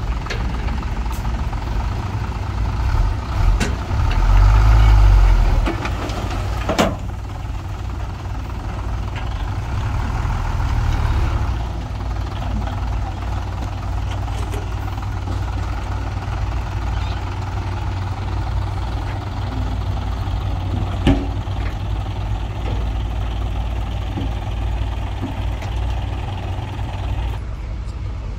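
Diesel engines of heavy earthmoving machinery running steadily, revving up twice in the first dozen seconds, with a few sharp knocks.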